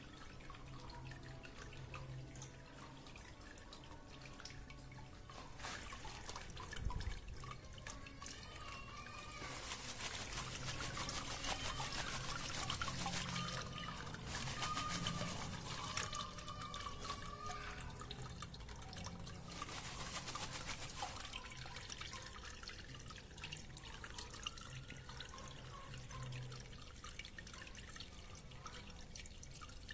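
Water sprinkled over burnt circuit-board pieces in a cloth filter, trickling and dripping through, with two louder spells of pouring about ten and twenty seconds in. This is the rinse that washes the leftover aqua regia off the boards.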